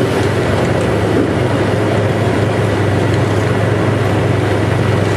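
Heavy earth-moving machine's diesel engine running steadily under load: a loud, even rumble with a strong low hum and no change in pitch.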